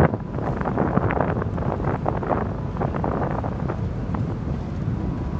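Wind buffeting the microphone in ragged gusts over a steady low rumble.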